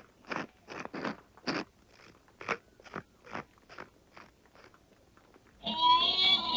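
A large pepper mill being ground with short crunching strokes, about two a second, fading out after about four seconds. Near the end a loud, drawn-out cry breaks in.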